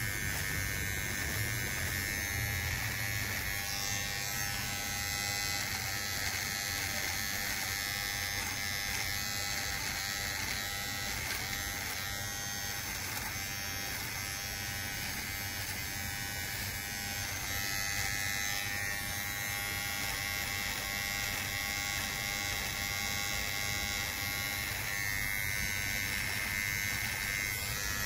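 Kemei electric trimmer running with a steady buzz as its blade is worked over mustache stubble.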